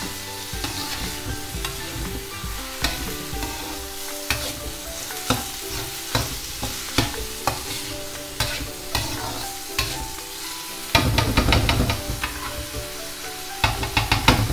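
Steel spatula scraping and tapping against a brass kadhai as chopped tomatoes and onions fry in oil with a steady sizzle. The stirring turns into a fast run of scrapes about eleven seconds in and again near the end.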